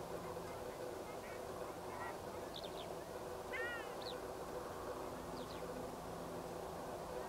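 Ruddy shelducks calling: a few scattered short honking calls, the clearest about three and a half seconds in, over a steady low background hum.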